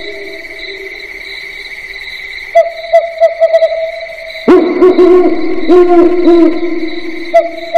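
Owl hooting, added as a sound effect: repeated quavering hoots over a steady high tone. The hoots come back in bursts from about two and a half seconds in, and are loudest from about four and a half seconds.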